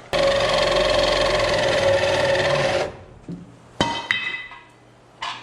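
A power tool runs at a steady pitch for nearly three seconds and stops, then there are two sharp metal clanks that ring on briefly, and a short knock near the end.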